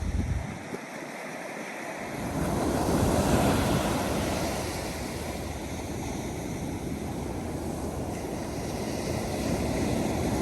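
Ocean surf breaking and washing on the beach, swelling up about two seconds in, with wind buffeting the microphone at the start.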